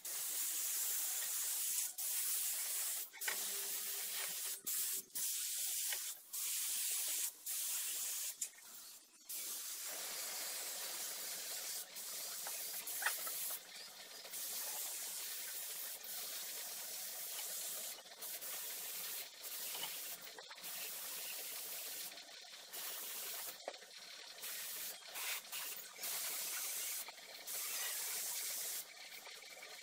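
Hissing spray that starts and stops repeatedly: short bursts with gaps at first, then longer runs broken by brief pauses.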